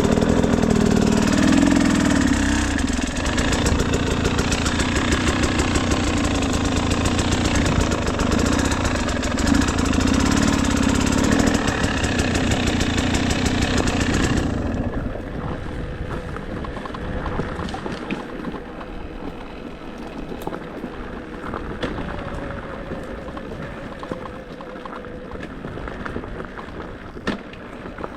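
KTM 300 EXC two-stroke single-cylinder dirt bike with a Pro Circuit exhaust, running under throttle with the revs rising and falling. About halfway through the engine note falls away sharply, and the rest is much quieter low engine running.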